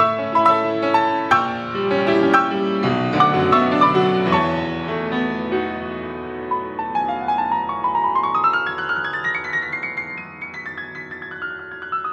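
Grand piano played solo: accented chords struck over the first few seconds, then a quieter run of single notes that climbs and comes back down.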